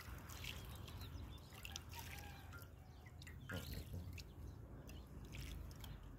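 Faint dripping and light splashing of water as hands scoop and rub in an aluminium pot of water, with scattered small drips falling back in.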